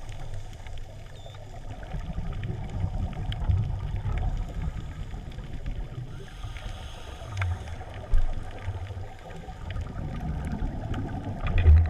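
Scuba diver breathing through a regulator, heard underwater: a hissing inhale about six seconds in, between low rumbling bursts of exhaled bubbles.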